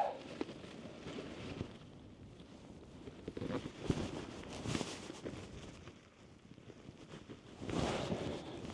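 Wind buffeting the microphone as a low, uneven rumble, with a few rustles of tent fabric and clothing as the tent is handled. The loudest rustle comes near the end.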